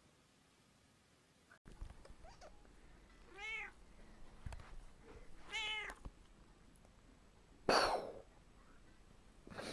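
Domestic cat meowing twice, two short calls about two seconds apart, each rising then falling in pitch. A brief noisy burst follows near the end.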